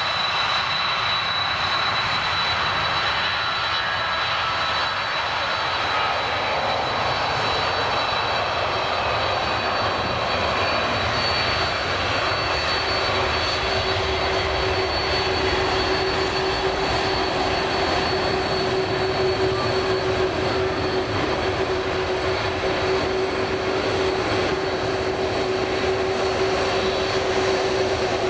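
Boeing 747-400's four jet engines running at taxi power as the airliner rolls slowly past: a steady rushing noise with a thin high whine, and a lower steady hum that joins about halfway through.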